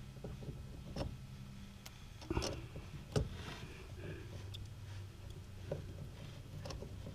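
Faint clicks and light knocks of a brass compression nut on plastic ice maker tubing being handled and threaded by hand onto a water line fitting. The sharpest knocks come a little over two and three seconds in.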